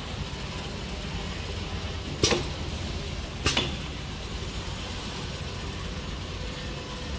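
Automatic round-bottle sticker labeling machine running with a steady low hum. Two sharp mechanical clicks come a little over a second apart near the middle.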